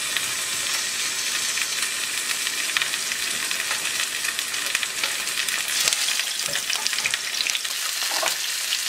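Chicken leg quarters searing in hot oil in a deep pan: a steady frying sizzle full of fine crackles, swelling briefly as more pieces are laid in.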